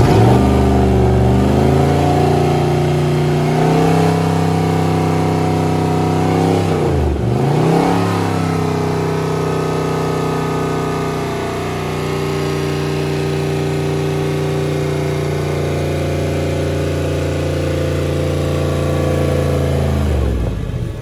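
Freshly overhauled MerCruiser 8.1-litre (496 cu in) big-block V8 marine engine running, exhausting through a wet exhaust hose. Its steady engine note dips sharply in pitch and comes straight back up about seven seconds in, and the sound cuts off near the end.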